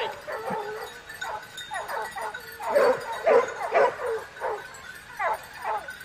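A pack of hunting dogs barking and yelping on a chase, several dogs at once, with a louder run of barks about halfway through.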